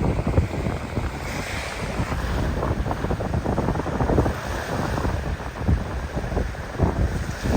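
Wind buffeting the microphone in uneven gusts, over the steady wash of small surf breaking on a beach.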